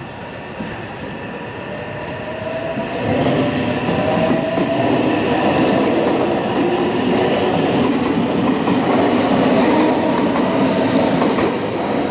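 Meitetsu electric commuter train running past close by on the main line, wheels rumbling on the rails with a steady whine over them. It grows much louder about three seconds in and stays loud as the cars go by.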